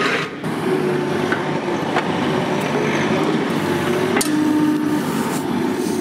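Compact excavator running and working, its engine and hydraulics going steadily, with a sharp knock about four seconds in.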